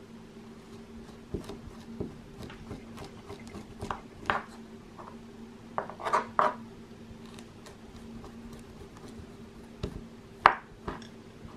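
Metal teaspoon scraping the white pith off orange peel, with irregular short scrapes and taps of the spoon against the wooden cutting board; the sharpest knock comes about ten and a half seconds in.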